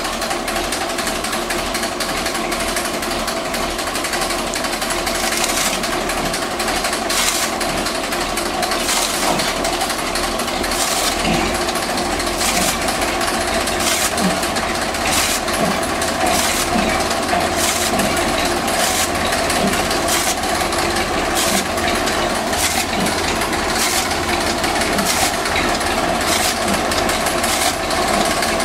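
Tractor engine running steadily while it drives a belt-powered chaff cutter through its rear wheel. From about five seconds in come sharp chops roughly once a second as the cutter's blades slice the green fodder being fed in.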